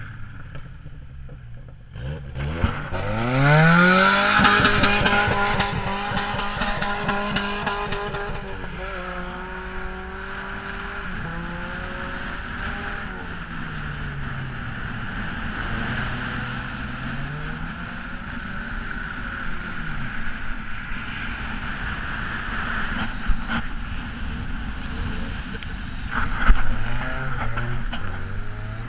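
Volvo car engine revved hard: the revs climb steeply a couple of seconds in and hold high for several seconds, then fall and rise again several times as the car is driven, with another rise in revs near the end.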